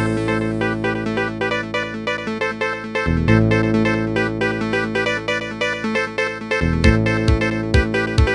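Synthesized ringtone from a Samsung SCH-i830 phone: a quick run of repeated keyboard-like notes over held bass chords. The chord changes about three seconds in, and near the seven-second mark the bass turns to short separate notes.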